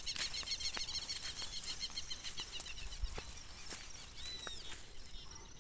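Birds calling in the countryside: dense, rapid high chirping through the first three seconds, then a couple of short whistled notes about four and a half seconds in, over scattered clicks of footsteps on a dirt road.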